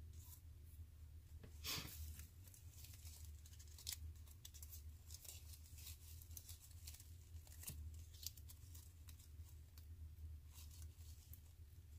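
Faint tearing and crinkling of paper price tags being peeled off artificial flower stems: a run of small rips and rustles, the loudest about two seconds in. A low steady hum lies underneath.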